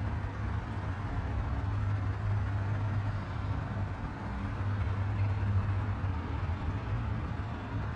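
Steady low drone of a boat engine on the water, over a constant hiss.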